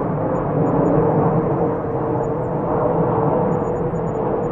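Jet-engine sound effect from a battery-operated toy Boeing 747 airliner's speaker: a steady noisy roar with a held tone under it.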